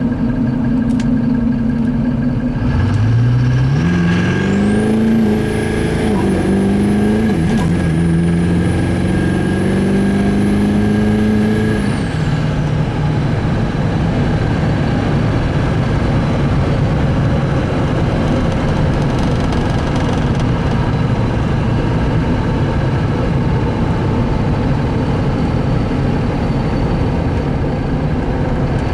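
Duramax V8 turbodiesel pickup accelerating hard, the engine note climbing with two brief dips, while the newly installed S366 turbocharger gives a high, thin whistle. Both cut off together at about twelve seconds as the throttle is lifted, leaving steady cruising engine and road noise.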